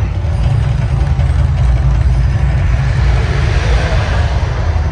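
The Mirage volcano show erupting: a loud, steady deep rumble with an even rushing noise over it, from the attraction's gas fire jets and its sound system.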